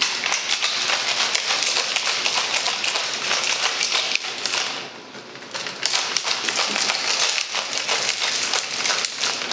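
Ice cubes rattling inside a stainless-steel cocktail shaker as it is shaken, a fast, continuous clatter. It eases off briefly about five seconds in, then starts again.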